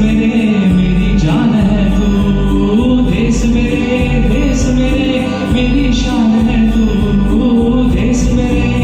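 A man singing a Hindi patriotic song over instrumental accompaniment with a steady, light beat.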